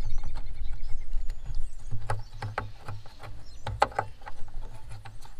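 Irregular plastic clicks, taps and knocks from a hand working behind a 2019 Ford Ranger's headlamp housing, fitting the electrical connector onto the newly installed H11 low-beam bulb.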